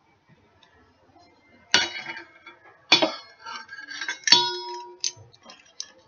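Kitchen utensil clinks: a measuring spoon and spice containers knocking against a mixing bowl and the counter. Three sharp clinks, the third ringing on briefly, then a few lighter ticks near the end.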